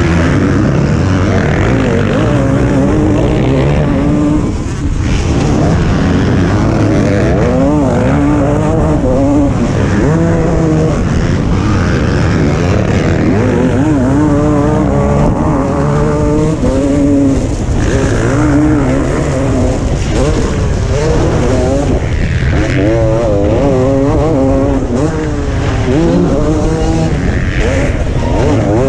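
MX1-class motocross bike engine heard close up from the rider's helmet, revving hard and easing off again and again with throttle and gear changes, with other bikes' engines close by.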